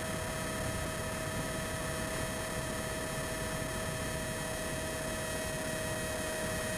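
Brushless electric motor of a Bixler 3 RC plane running at a steady cruise throttle: a constant whine at an unchanging pitch over an even airflow hiss.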